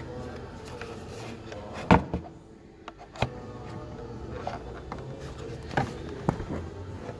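Several sharp clicks and knocks of parts being handled in a car's engine bay, the loudest about two seconds in, over a steady low hum.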